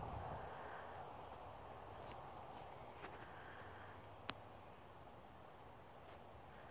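Faint night insect chorus with a steady high-pitched trill, and a few sharp clicks, the loudest about four seconds in.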